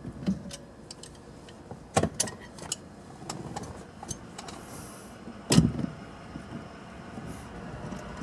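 Irregular clicks and metal clinks of hand tools working at a car's steering wheel hub, with two louder knocks, about two seconds in and about five and a half seconds in.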